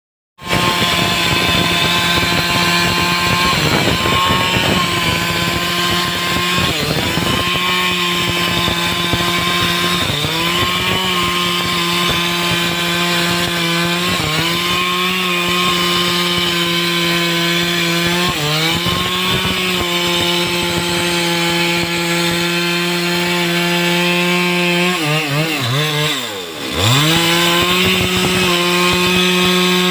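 Stihl chainsaw engine running at high revs while cutting wood. The pitch sags briefly several times as the chain bogs under load, then recovers, with a deeper drop and pick-up near the end.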